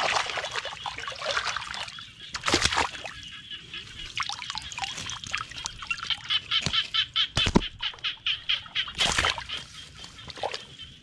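Hands splashing and sloshing in shallow muddy paddy water at a bamboo plunge fish trap while a fish is grabbed and handled, with several sharp splashes and knocks. Under it runs a faint, fast rhythmic chatter.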